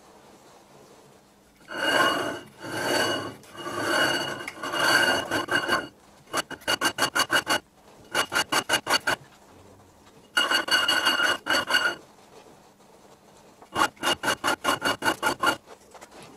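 Lathe tool insert cutting the face of a cast iron brake disc on a 100-year-old bench lathe, in spells: first a few rasping passes about a second apart, then stretches of fast rattling chatter, all with a ringing tone on top. The chatter is the vibration that the owner blames on too much flex in the setup.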